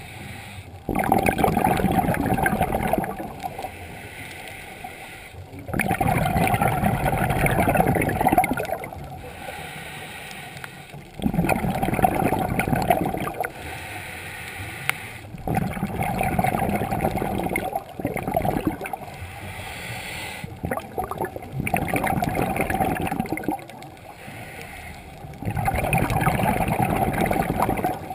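Scuba diver breathing through a regulator underwater: a loud bubbling rush of exhaled air about every five seconds, six times, each lasting two to three seconds, with quieter stretches between breaths.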